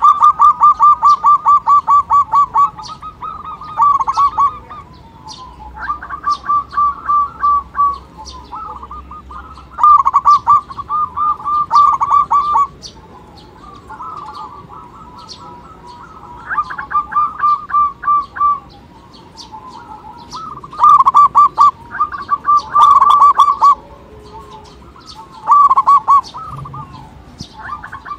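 Zebra dove (perkutut) song: repeated bouts of fast, evenly spaced staccato coos, each bout lasting one to three seconds, separated by short pauses.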